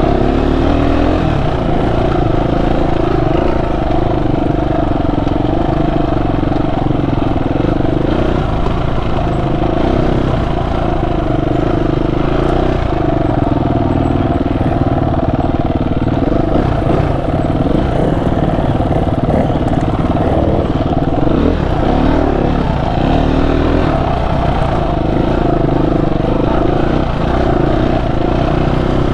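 Dual-sport motorcycle engine running under way, its pitch rising and falling every few seconds as the throttle opens and closes.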